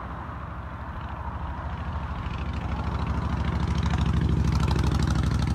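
Helicopter rotor beating in a fast, even pulse, growing steadily louder.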